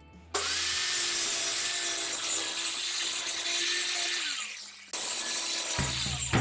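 A Skil circular saw starts abruptly and cuts through a wooden board. Its motor whine holds steady, then drops about four seconds in. The cutting breaks off briefly near five seconds and starts again.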